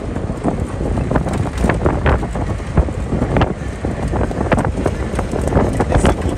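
Wind buffeting the microphone over the low rumble of a jeep driving, with frequent knocks and rattles from the vehicle.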